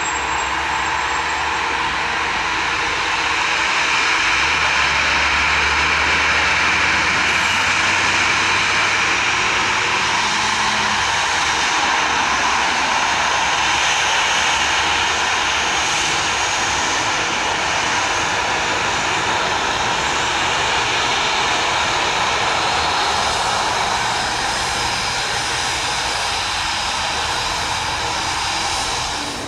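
Boeing 737 freighter's CFM56 turbofan engines running steadily as the jet rolls past on the runway, a little louder from about four seconds in.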